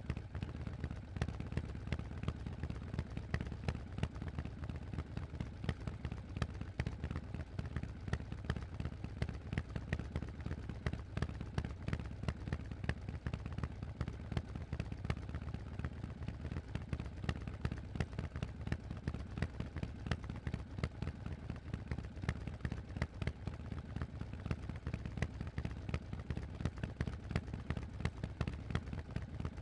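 Harley-Davidson Forty-Eight's air-cooled 1200 cc V-twin running through a Vance & Hines aftermarket exhaust: a steady, deep run of sharp, uneven exhaust pulses with no big revs.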